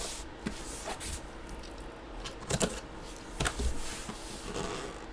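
Handling of a packaged box: a handful of knocks, taps and rustles, the strongest two a little before and after the middle, over a low steady hum.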